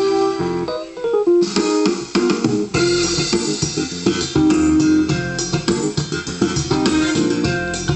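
An electronic arranger keyboard playing music with guitar and bass voices. A held chord gives way about half a second in to a short run of falling notes, and from about a second and a half a rhythmic accompaniment of plucked guitar and bass starts up.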